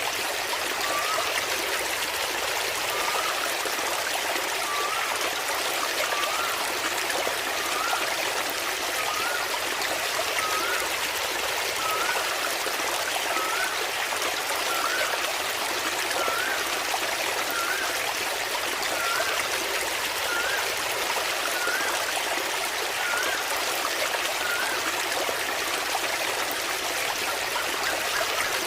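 Waterfall splashing steadily into water. A faint short rising note repeats about every second and a half over it, stopping near the end.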